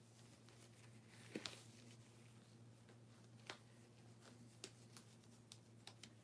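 Near silence: a steady low hum with a few faint, sharp clicks, two close together about a second and a half in and single ones around three and a half, four and a half and six seconds.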